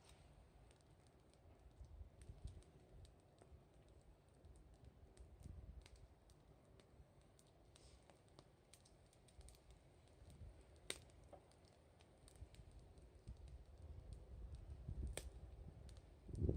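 Wood campfire crackling faintly, with scattered sharp pops and ticks over a low rumble.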